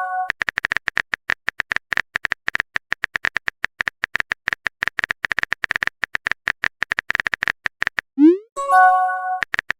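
Rapid keyboard-typing sound effect clicks, then, about eight seconds in, a short rising whoosh and a chiming message-sent tone.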